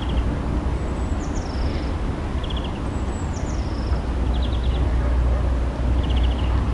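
A small songbird singing a short repeated song. Each phrase is a high whistle that steps down in pitch, followed by a quick rattling trill, and it comes about every two seconds, over a steady low rumble.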